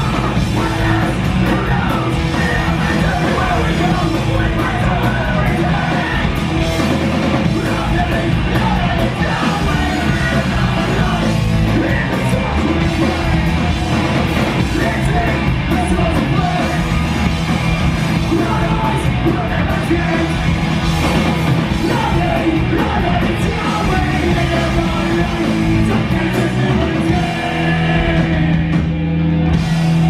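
Live punk rock band playing: distorted electric guitars, bass and drums under shouted, yelled vocals. Near the end the cymbals drop out and a low note is held.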